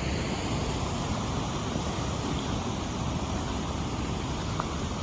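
Stream water rushing steadily over rocks, a constant even hiss with no breaks.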